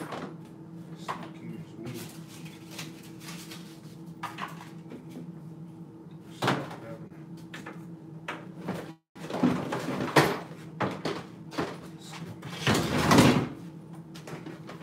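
Tools and hardware clattering and knocking as someone rummages through a toolbox. There are scattered knocks at first, then a busier, louder run of rattling in the second half. A steady low hum runs underneath.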